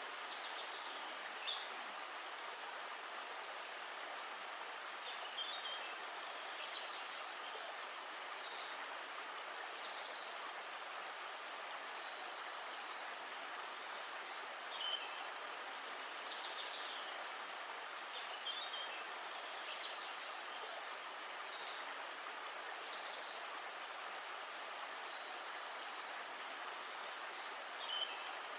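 River water flowing with a steady rushing sound, while birds call in short, high chirps every second or two.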